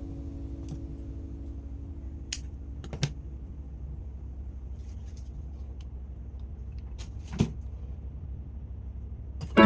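Low steady hum with a few sharp, scattered clicks, three of them clear. Background music fades out at the start and comes back in at the very end.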